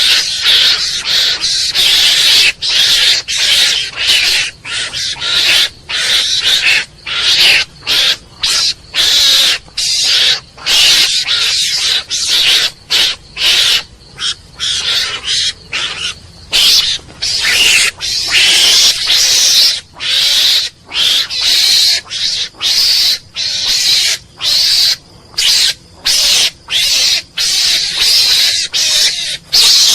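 Mongoose calling: a long run of short, harsh, hissing calls, about one and a half a second, each broken off by a brief pause.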